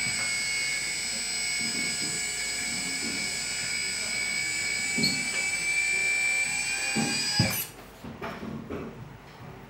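Hydraulic pump of a 1/14-scale MAN 8x8 hook-lift RC truck whining steadily as the hook arm pushes the container off the back. It cuts off with a clunk about seven and a half seconds in, and a few faint knocks follow.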